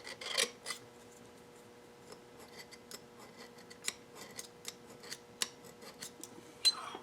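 A steel scribe scratching layout lines on a brass plate guided along a machinist's block, with small scrapes and light metal clicks as the block and plate are shifted. A faint steady hum underlies it.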